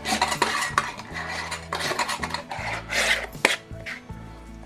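Lids being screwed onto glass wide-mouth canning jars: repeated rasping scrapes of the metal bands turning on the jar threads, with light clinks and one sharp click a little past three seconds in.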